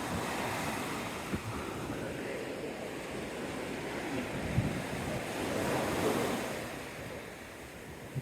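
Surf washing onto the beach, one wave swelling louder about six seconds in, with wind buffeting the microphone and a few brief knocks.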